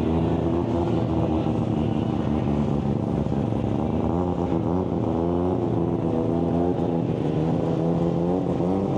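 Mazda RX-7 FD's rotary engine running as the car pulls away, with brief revs about four seconds in and again near the end.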